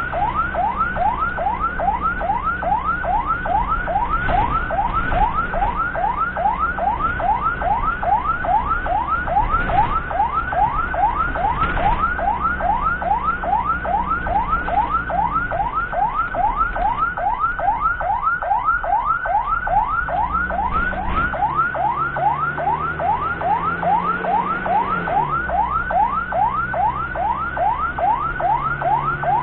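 Ambulance siren on the rapid yelp setting, a fast run of rising wails a few times a second. Under it is the low, steady drone of the vehicle's engine, which shifts in pitch about two-thirds of the way through.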